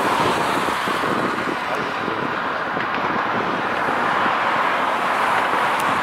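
Steady city traffic noise: a constant rush of vehicles and engines running, with no distinct events.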